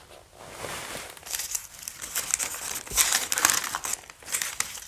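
Crinkling, crunching rustle of debris being crushed or handled, building about a second in with quick crackles and a louder stretch about three seconds in.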